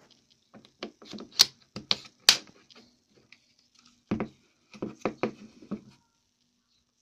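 Plastic back cover of a small Cube X3 mini wireless speaker clicking into place in several sharp snaps, the loudest about one and a half and two and a half seconds in. About four seconds in come a few duller knocks as the plastic speaker is turned over and set down on a table.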